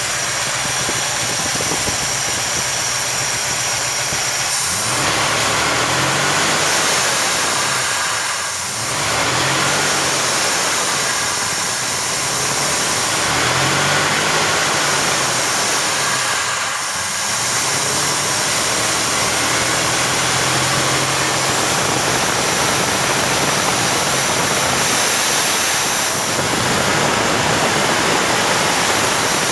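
Carbureted 400 truck engine with the throttle slowly opened and closed by hand: the engine speed rises and falls several times under a loud, steady wheezing hiss of air being drawn through the carburetor. The wheeze is the fault being shown, which the owner files under fuel delivery.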